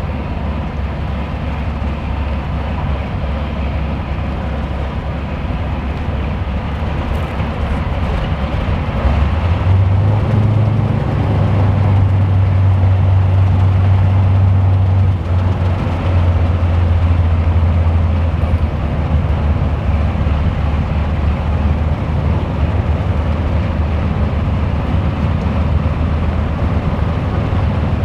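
Lockheed P-38 Lightning's twin Allison V-1710 V12 engines running at idle: one engine runs alone, then the second engine starts about nine seconds in and the sound gets louder and deeper, both running steadily after that.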